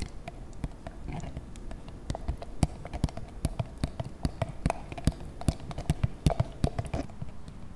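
A utensil knocking and scraping inside a plastic mayonnaise jar, making irregular clicks and taps that stop about seven seconds in.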